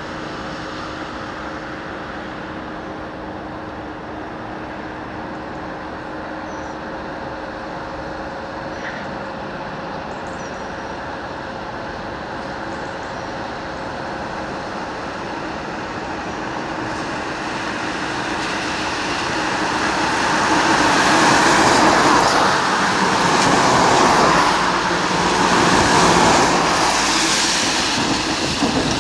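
Motor vehicle engine and road noise. A steady drone fills the first half, then the noise builds in the last third into several louder swells, as of vehicles driving past close by.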